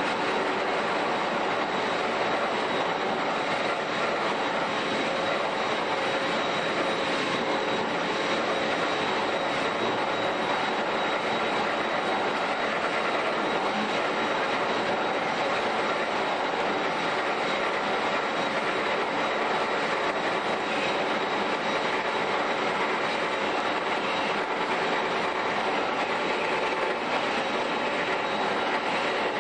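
HEMSAW DC8080 industrial bandsaw cutting through a vehicle's steel body: a steady metallic grinding hiss with a faint high whine.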